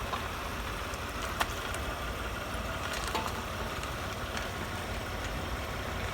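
Toyota Highlander's suspension giving a few sharp clicks or cracks, the loudest about one and a half seconds in, over the vehicle's steady running noise. This is the crunch that persists even with new original struts and strut mounts.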